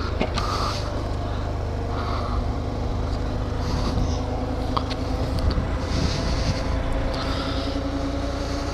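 Honda Grom's small single-cylinder four-stroke engine running steadily as the bike cruises along a road, with a heavy low wind rumble buffeting the microphone.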